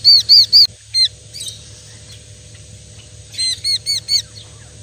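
A young fledgling songbird calling: quick runs of short, high, arched calls, about five at the start and about five more around three and a half seconds in, with a single call about a second in.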